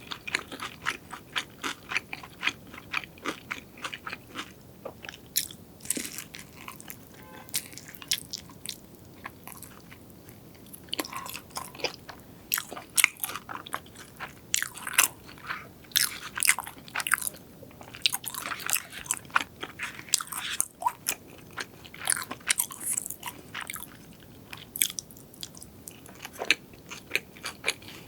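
Close-miked eating: a person biting and chewing crunchy fried food, with dense, irregular crackling crunches throughout.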